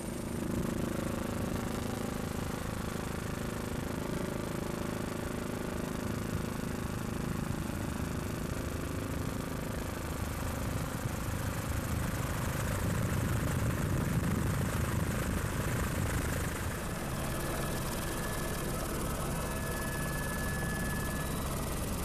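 Helicopter engine and rotor noise: a steady drone with a hum of layered tones, swelling a little in the low range about halfway through.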